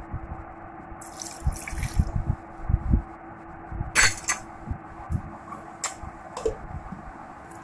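Steel spoon stirring thick cake batter of flour, curd and milk in a steel bowl: wet squelching and dull knocks, with a few sharp scrapes and clinks of the spoon against the bowl, the loudest around four seconds in.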